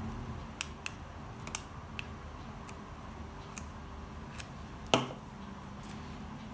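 A glue stick being rubbed onto paper and paper being handled, heard as scattered small clicks and light scrapes. About five seconds in comes one sharp, louder knock with a brief ring as the glue stick is set down upright on a wooden tabletop.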